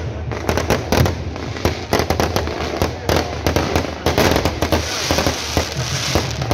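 Aerial fireworks bursting overhead with dense, rapid crackling and popping, many sharp cracks a second, from crackling-star shells; the crackle grows denser about four seconds in.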